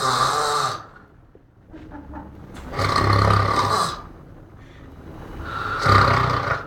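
A man snoring: three loud snores about three seconds apart, each lasting about a second, with a low rattle in each and quieter breathing between.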